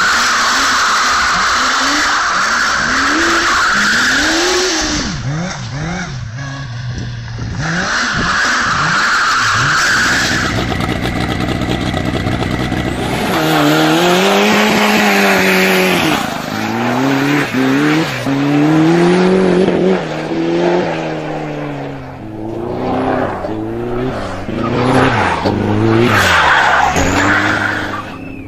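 Motorcycle-engined go-kart engines revving hard, the pitch rising and falling again and again, with tyres squealing as the karts slide and spin. The squeal is steadiest in the first few seconds and again about eight seconds in.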